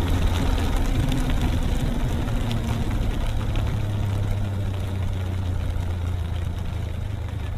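Motorcycle engine running with a steady low hum under road and wind noise, getting gradually a little quieter.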